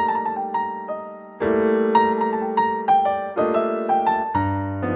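Background keyboard music, piano-like: a slow tune of single struck notes over held chords that change every second or two.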